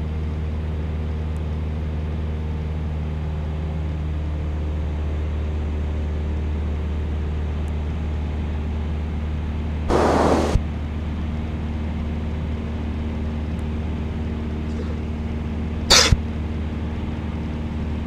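Steady drone of a small single-engine piston plane's engine and propeller, heard through the cockpit headset intercom. A brief burst of hiss comes about ten seconds in, and a shorter one near sixteen seconds.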